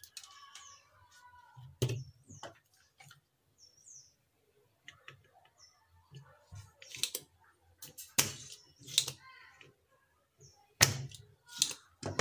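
Spring-loaded desoldering pump (solder sucker) being cocked and fired against the solder joints of a monitor power-supply board, giving several sharp clicks and snaps, a cluster of them about two-thirds of the way through.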